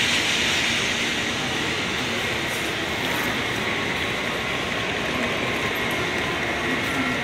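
N700-series Shinkansen train moving past the platform, giving a steady rushing rail and running noise that eases slightly after the first second.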